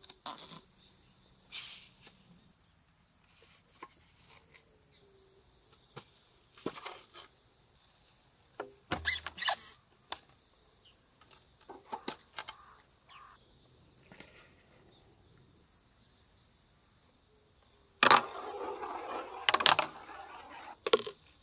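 Clear plastic pipe fittings clicking and knocking as they are pushed together, over steady insect chirring. Near the end a ball rolls down the clear plastic tube for about three seconds, rumbling, with a few sharp knocks.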